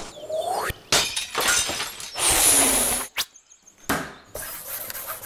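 Edited-in cartoon sound effects: a short rising whistle, then a crash of breaking, shattering glass about two seconds in. A sharp snap and a thud follow near the end.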